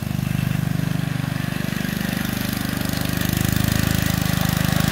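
Kohler K91 single-cylinder four-stroke engine on a British Anzani Lawnrider ride-on mower running steadily while mowing, with an even, rapid firing pulse. It gets louder about three seconds in.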